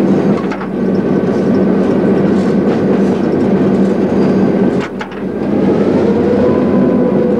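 EMD E8 diesel locomotive heard from inside its cab while running on the line: a steady engine drone under the rumble of wheels on rail. The sound dips briefly twice, the second time with a few sharp clicks about five seconds in.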